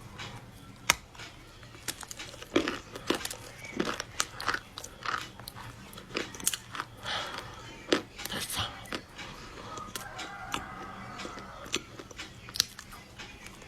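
Close-up eating of crunchy chocolate: irregular sharp crunching bites and chewing, with the loudest crunches about a second in and near 8 seconds.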